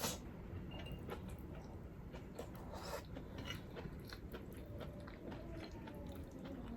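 Close-miked eating sounds: a person chewing and biting food, with small wet clicks and crunches.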